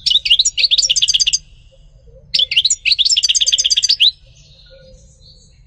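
European goldfinch singing: two fast runs of rapid twittering notes, about a second and a half each, with a short pause between.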